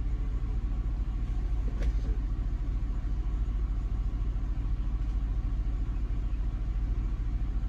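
Car engine idling: a steady low rumble, with one faint click about two seconds in.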